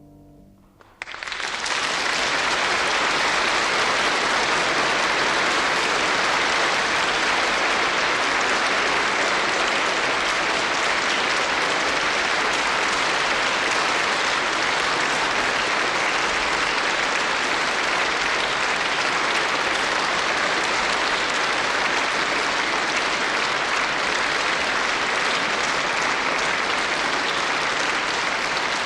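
Large concert audience applauding; the clapping breaks out suddenly about a second in and keeps up steadily.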